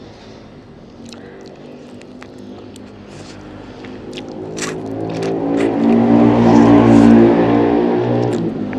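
A motor vehicle's engine passing by, swelling to its loudest about two-thirds of the way through and then fading. Sharp clicks of chewing and biting on chicken bones sound throughout.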